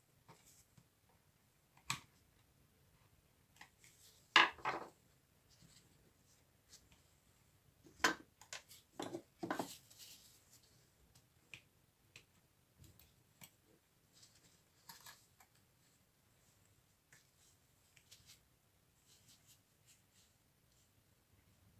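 Jigsaw parts being handled on a bench: scattered clicks and light knocks, with a few louder clatters about four seconds in and again around eight to ten seconds in.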